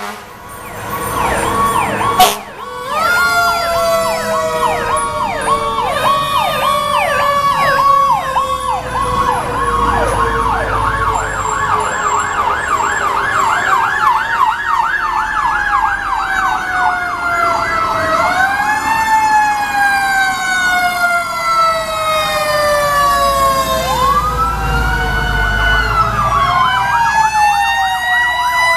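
Several fire-truck sirens sounding at once as the apparatus pass. Electronic sirens on yelp sweep rapidly up and down for the first half, overlapping long slow wails that fall and rise again, with a sharp crack about two seconds in and the low rumble of truck engines going by.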